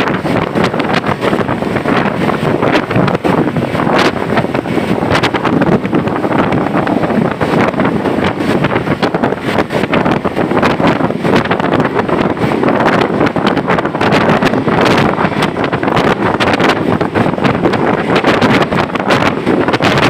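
Steady rushing noise of a bus travelling in heavy rain: road and wind noise with frequent short crackles.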